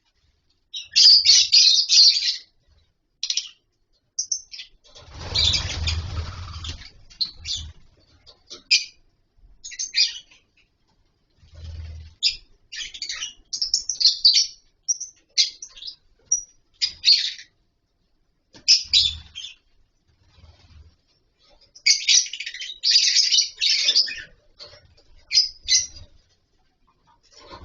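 A colony of lovebirds chirping in short, shrill bursts with pauses between them. The busiest flurries come near the start and about twenty-two to twenty-five seconds in, and a rustling noise comes about five seconds in.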